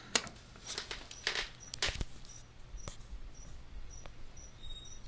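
Handling noise: about half a dozen scattered small sharp clicks and light rustles, mostly in the first three seconds, over a faint steady hum.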